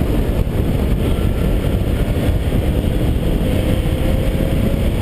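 1970 Porsche 911 with a twin-plugged 2.6-litre air-cooled flat-six running at speed, heard through heavy wind buffeting and road noise on an outside-mounted camera. In the second half a faint engine note climbs slowly.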